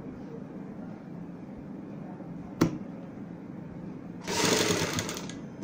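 Sewing machine running steadily while stitching fabric. A sharp click comes about two and a half seconds in, and a loud burst of hissing noise lasting about a second comes near the end.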